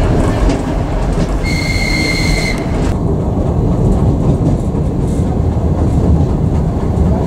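Rumble of a moving diesel passenger train heard from inside the car, wheels running on the track. A short, steady high-pitched tone sounds for about a second, beginning a second and a half in, and the sound turns duller about three seconds in.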